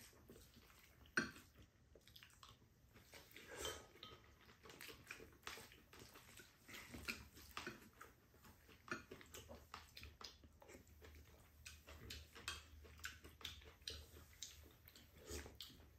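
Faint eating sounds: chewing, with spoons and chopsticks clicking and scraping against ceramic rice bowls in scattered light taps. The sharpest click comes about a second in.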